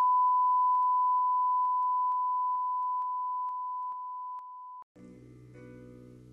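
A steady, pure test-tone beep that grows quieter in about a dozen small steps, each with a faint click. It cuts off a little before five seconds in, and after a brief gap soft music with plucked strings begins.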